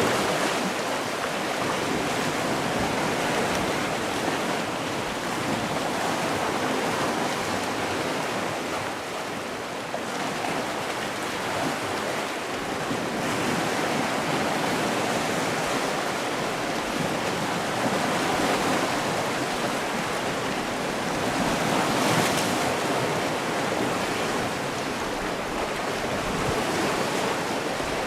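Sea waves washing onto a shore, a steady rush of surf that swells and eases slowly, with a louder wave about two thirds of the way through.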